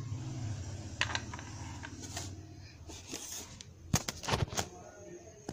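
Handling noise of a plastic toy car: scattered light clicks and knocks, with a cluster of louder sharp knocks about four seconds in.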